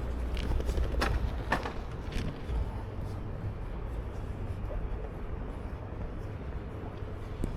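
Low, steady rumble of street traffic, with a few sharp clicks and knocks in the first two seconds.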